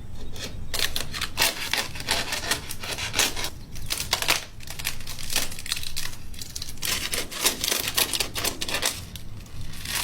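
Dry, papery wasp-nest envelope crackling and tearing as its layers are pulled apart, a dense irregular run of crisp crackles.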